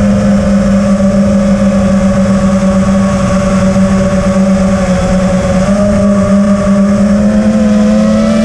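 FPV quadcopter's electric motors and propellers running with a steady hum, heard through the onboard camera, with a rough wind rumble on the microphone. The pitch wavers a little near the end.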